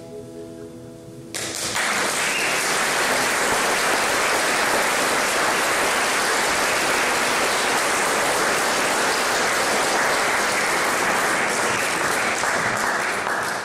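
The last chord of a fingerpicked steel-string acoustic guitar ringing out, then an audience starts applauding about a second in and keeps clapping steadily, marking the end of the piece; the applause fades near the end.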